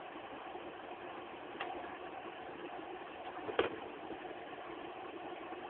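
A steady hum with two sharp clicks, a faint one about a second and a half in and a louder one about three and a half seconds in: small parts and tools being handled while an iPod is taken apart.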